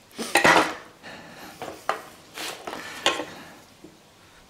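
A few separate clinks and rattles of small metal parts and tools handled on a workbench while a dirt bike's rear brake master cylinder is being taken apart. The loudest comes about half a second in, with sharper clicks near the end.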